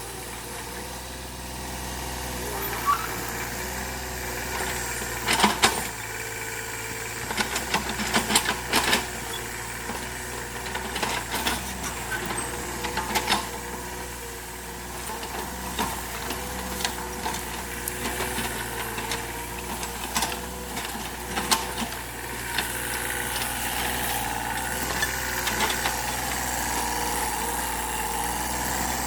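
Excavator's diesel engine running steadily, with many sharp knocks and clanks from the digging work, clustered in the middle of the stretch.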